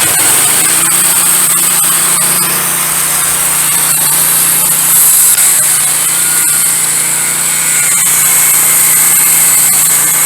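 Wood-Mizer LT15 Go band sawmill cutting a slab off a pine log: the engine runs steadily under load while the band blade saws through the wood with a loud, steady high hiss.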